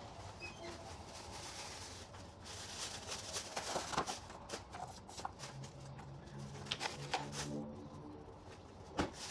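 Rustling and clattering of trash and small items being gathered off a shop workbench, with scattered sharp knocks, the sharpest near the end. A low hum with overtones runs for a couple of seconds a little past the middle.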